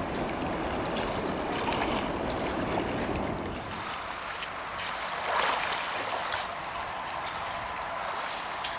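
Steady rush of flowing river water. The deeper part of the noise fades about three and a half seconds in, with a few faint ticks over the top.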